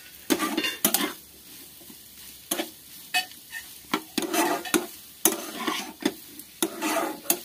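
Spatula scraping and tapping against a nonstick frying pan as a thick mashed beetroot, carrot and potato filling is stirred and pressed. The strokes come about once a second, each with sharp clicks, over a light sizzle as the filling is cooked down until dry.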